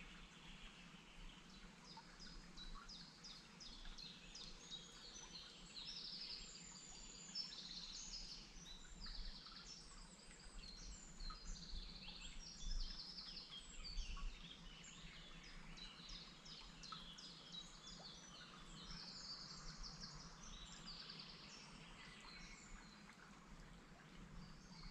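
Several songbirds singing at once, a faint, busy chorus of overlapping chirps and trills, with a couple of soft low thumps about halfway through.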